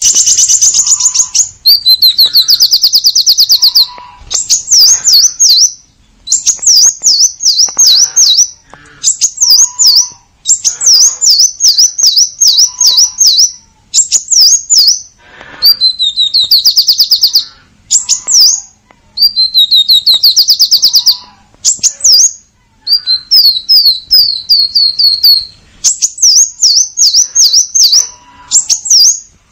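Purple-throated sunbird singing vigorously: phrases of rapid, sharp, high chirps and buzzy trills, one to two seconds each, repeated with short pauses.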